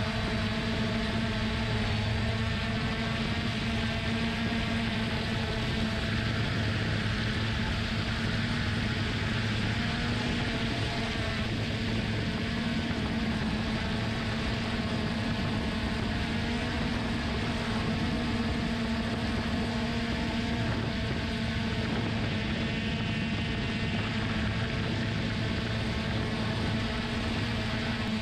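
3DR Solo quadcopter's electric motors and propellers humming steadily in flight, heard from the GoPro mounted on the drone, over a steady rushing hiss. The pitch wavers slightly but does not stop or change sharply.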